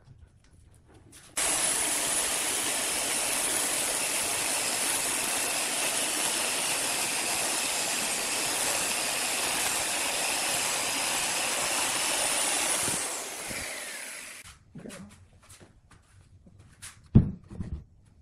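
Electric chainsaw cutting through a log: it starts abruptly about a second in, runs steadily for about eleven seconds, then winds down. A few sharp knocks follow near the end.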